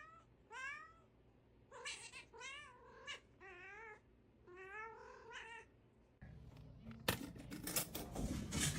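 A cat making a string of about eight short, warbling meows, each with a wavering pitch. About six seconds in the background noise rises, and near the end there is a run of clattering and knocking.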